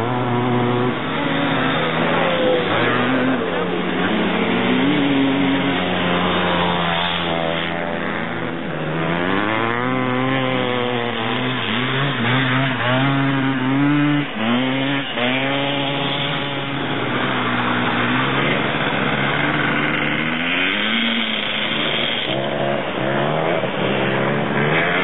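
Engines of three-wheeled ATCs revving up and dropping back over and over as they ride laps on snow, sometimes two machines heard at once.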